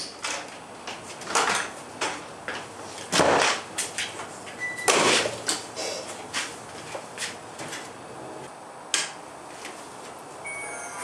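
A door opening, followed by a string of irregular knocks, thuds and rustles as a boxy prop is carried in and set down on a workbench. Near the end a steady electric hum with several tones sets in.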